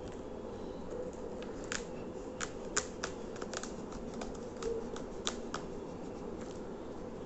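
A parcel's packaging being torn open by hand: scattered sharp crackles and snaps, a dozen or so, over a steady low hum.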